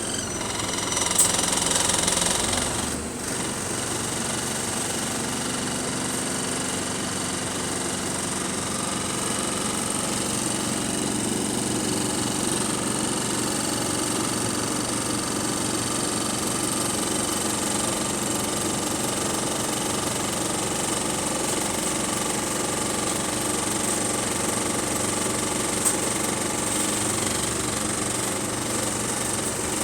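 Bus diesel engine running with a rattly, knocking idle, heard from inside the bus. A brief burst of hiss about a second in.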